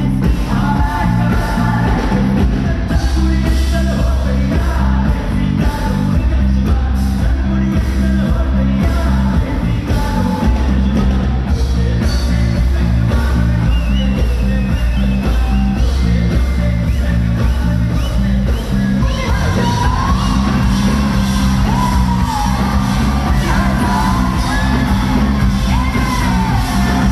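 Live band playing loud amplified pop music with a heavy, pulsing bass beat, bass guitar included, and a vocalist singing into a microphone; the singing stands out more clearly in the last third.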